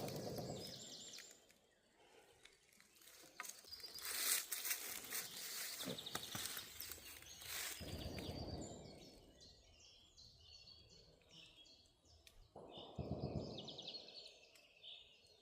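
Outdoor woodland sound: a small bird gives a quick run of high chirping notes through the second half, over gusts of rumbling noise and rustling close to the microphone.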